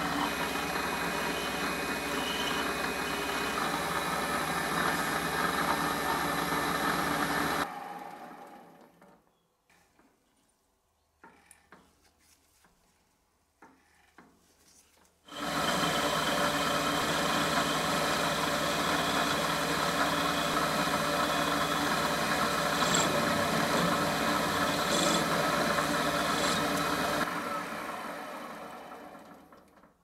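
A small metal lathe running steadily while a carbide insert cuts a steel part. It winds down about 8 s in, leaving a few faint clicks of hand work at the chuck. About 15 s in it starts again abruptly, runs steadily cutting, and winds down near the end.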